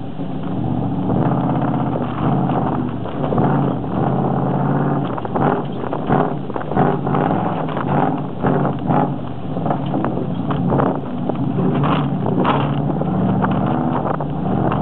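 Dodge 318 V8 engine running while towing an old truck hood on a chain across rough pasture. Repeated knocks and rattles come through, thickest in the middle, from the hood bouncing and scraping over the ground.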